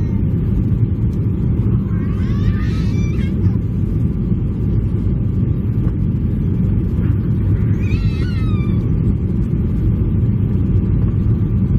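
Steady low rumble of an airliner cabin on landing approach: engine and airflow noise. Twice, about two seconds in and about eight seconds in, a short high-pitched voice rises and falls above it.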